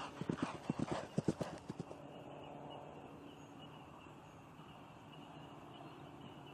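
A horse's hooves striking turf at a canter: a quick run of thudding hoofbeats that dies away about two seconds in, leaving only faint steady background noise.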